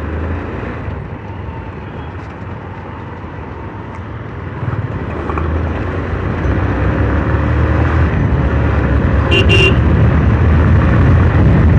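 Hero Karizma ZMR motorcycle being ridden off, its engine and wind noise on the helmet microphone growing louder as it picks up speed from about five seconds in. A short high-pitched beep, like a horn, sounds about nine and a half seconds in.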